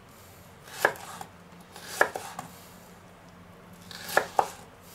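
Chef's knife slicing a white cabbage into thin strips on a wooden cutting board: a handful of sharp, unevenly spaced knocks as the blade cuts through and meets the board.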